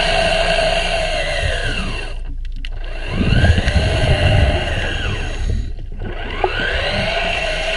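Remora Solo underwater rotary hull brush running against a boat hull, heard underwater: a motor whine over a low rumble, its pitch sweeping down and back up twice.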